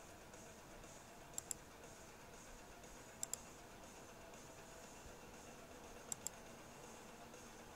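Computer mouse button clicking in three quick double clicks, a couple of seconds apart, over a faint steady room hiss.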